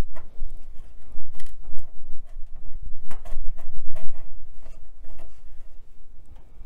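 Irregular plastic clicks, creaks and rubbing as a slocket CPU card with its heatsink is worked loose from a Slot 1 connector and its brittle plastic retention clips.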